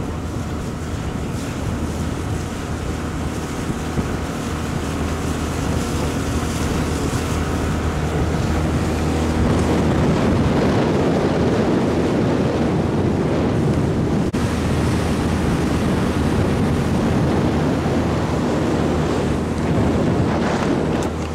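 Motorboat's outboard motor running steadily under way, with water rushing past the hull and wind buffeting the microphone. The water and wind noise grows louder about ten seconds in.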